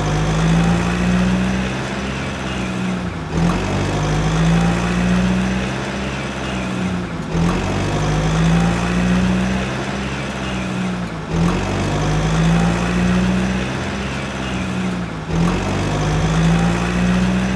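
Looped truck engine sound effect: a steady low engine drone that repeats in an identical cycle about every four seconds, dipping briefly at each repeat.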